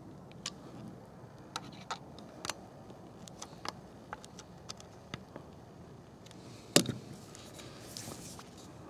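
Small, scattered clicks and scrapes of a screwdriver turning and seating the steel stock screws on a .22 rifle, with one louder knock a little before the end.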